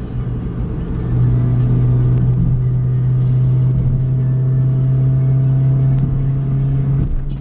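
Honda Fit's four-cylinder engine droning with road noise inside the cabin at highway speed. The drone grows louder about a second in and holds, with a faint, slowly rising whine over the middle, then dips shortly before the end.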